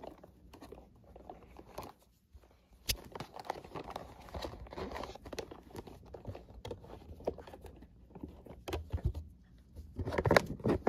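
Rustling and light plastic clicks and knocks of hands moving plush toys into toy cars, irregular throughout, busier and louder near the end.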